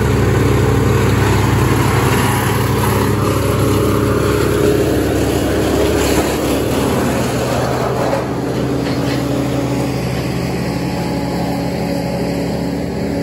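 Heavy diesel land-clearing machinery running steadily under load, with a few short cracks around six and eight seconds in.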